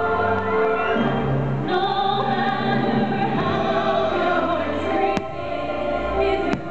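Orchestral music with a choir singing, the fireworks show's soundtrack. Two sharp firework cracks cut through it, about five seconds in and again near the end.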